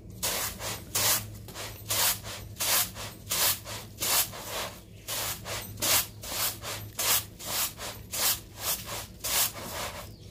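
Rice grains swishing and rattling in a flat bamboo winnowing basket as it is shaken and tossed by hand, a regular rhythm of about two to three swishes a second.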